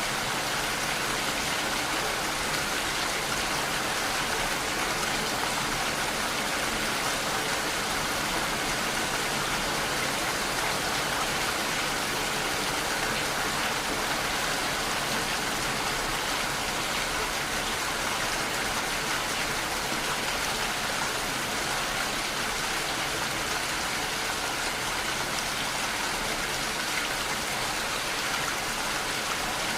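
Steady rainfall, an even hiss of drops with no breaks or changes.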